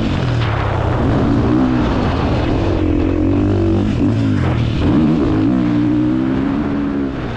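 KTM 450 single-cylinder four-stroke dirt bike engine heard from an onboard camera, revving up and down as the rider works the throttle, with a brief dip in revs a little past halfway. It gets slightly quieter near the end.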